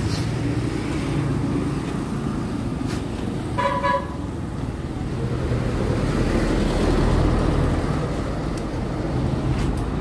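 A motorcycle engine running steadily at idle amid street traffic, its low rumble growing fuller about six seconds in, with a short horn toot about three and a half seconds in.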